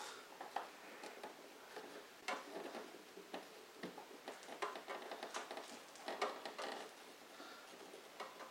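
Faint, irregular small clicks and rustles of fingers handling thin wires and their connections at a scooter's tail light.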